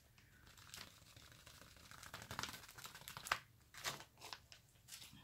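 Clear plastic sheet protector crinkling faintly as it is folded and tilted to pour leftover embossing powder back into its pot, with scattered small crackles and ticks, a few of them sharper in the second half.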